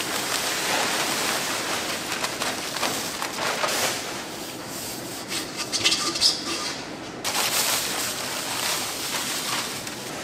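Steady rushing hiss with rustling as dry red pepper powder and white powder are poured from plastic sacks into a stainless steel mixing trough, with a few small knocks about five to seven seconds in.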